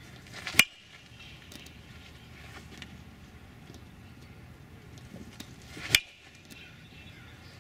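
Two sharp pings of a metal baseball bat striking the ball, about five seconds apart, each with a brief ring.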